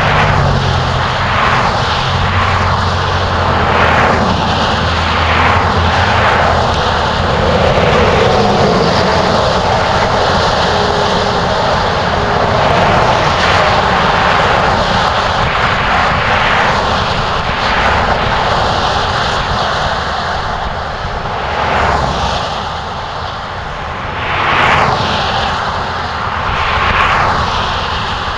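Road traffic noise: a loud steady roar with vehicles swishing past one after another, every second or two.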